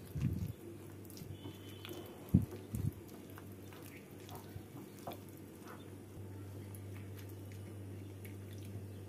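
A hand kneading fish roe with gram flour in a glass bowl: soft wet squelching, with a few low thumps in the first three seconds. Later, a hand squeezing tamarind pulp in a steel bowl of water gives soft wet squishing and dripping over a steady low hum.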